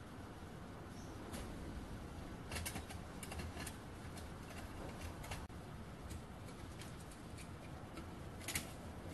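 Light clicks and taps of small metal parts being handled as a brass boiler is fitted onto the steel firebox stand of a model steam engine. The clicks are scattered, with a sharper one near the end.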